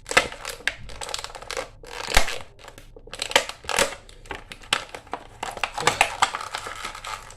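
Plastic toy packaging crinkling and crackling in irregular snaps and clicks as an action figure is worked loose from it.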